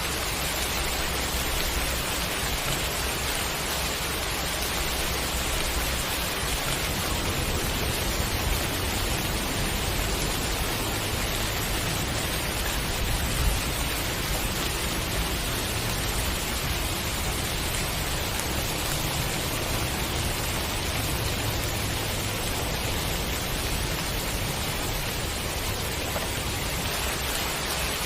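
Steady rain falling, an even hiss with a low rumble underneath that swells and fades.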